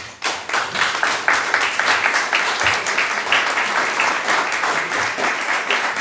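Audience applauding. The clapping breaks out all at once and holds steady.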